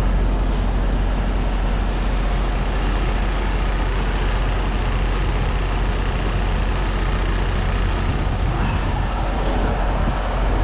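Semi truck's engine idling: a steady, unbroken rumble.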